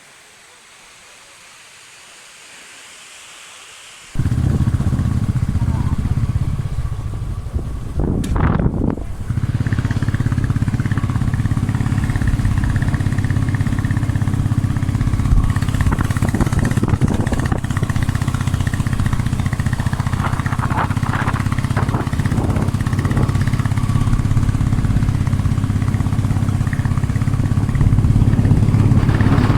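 Motorcycle engine running steadily and loudly, coming in abruptly about four seconds in after a few seconds of faint hiss.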